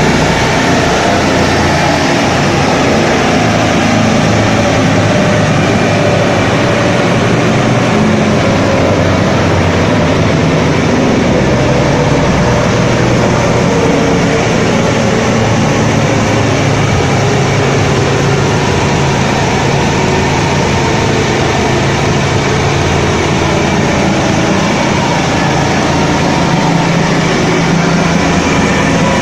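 A hot rod's twin-turbo V6 engine running loud and steady on a dynamometer. Its pitch shifts a little in the first half, then holds level.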